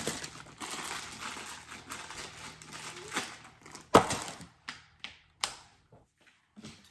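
Rapid clattering and clicking of small hard objects being handled, with one loud knock about four seconds in, then a few scattered clicks.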